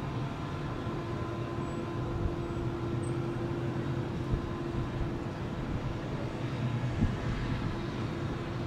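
Steady low rumble of a passing commuter train over the city's background noise, with a steady hum above it. A short sharp knock about seven seconds in.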